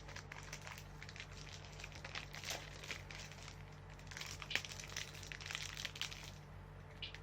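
Plastic wrapper of a breakfast bar crinkling as it is handled and torn open, in two spells of faint crackling.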